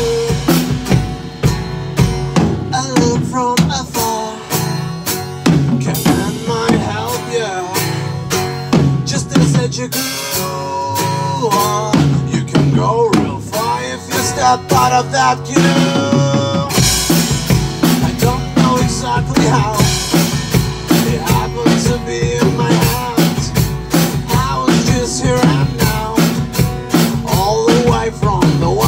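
Rock band instrumental passage: a drum kit keeping a steady beat with kick and snare under a guitar playing bending melodic lines. A little over halfway through, the drums open up with cymbals and a fuller low end.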